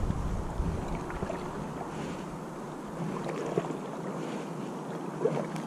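Kayak paddle dipping and pulling through river water, with wind rumble on the microphone dying away in the first second.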